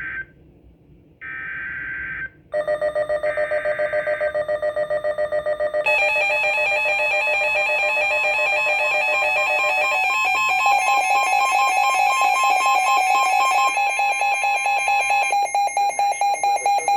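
NOAA Weather Radio SAME header bursts, buzzing data tones sent three times, announce a severe thunderstorm warning. They are followed by a loud electronic alert alarm beeping about four to five times a second. A steady tone joins the beeping about ten seconds in.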